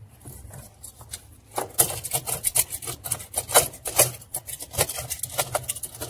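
Thin knife blade scraping and picking at hardened soap-and-lint crust around a washing machine's aluminium trunnion, working it loose. A quick, irregular run of scratches and small clicks starts about a second and a half in.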